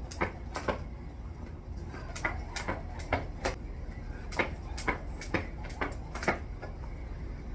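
Jump rope slapping the ground in a steady rhythm, about two strikes a second, with a short break about a second in before the skipping picks up again.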